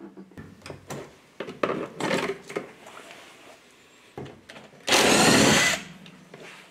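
A power driver spins for just under a second, undoing the passenger airbag fixing behind the dashboard, after a few light knocks and clicks as the tool is fitted to it.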